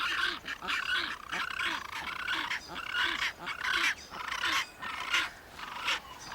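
Fiordland crested penguins calling: a continuous run of short, harsh, repeated calls, a few each second.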